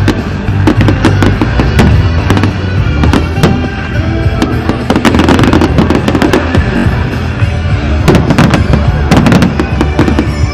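Fireworks going off in quick succession, sharp bangs and crackles, over loud music from the display's sound system. The bursts come thickest around the middle and again near the end.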